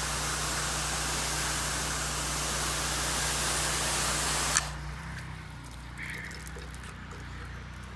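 Pressure washer spraying, a steady water hiss over the hum of the machine; about four and a half seconds in the spray cuts off with a click as the trigger is released, and the machine keeps running.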